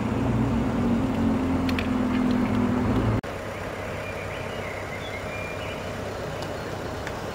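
A vehicle engine running with a steady low hum that cuts off suddenly about three seconds in, leaving quieter street ambience with a few faint high chirps.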